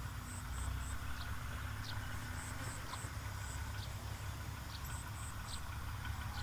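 Rice-field outdoor ambience: a steady low rumble under short high chirps that come in quick groups of three, along with a few single brief chirps.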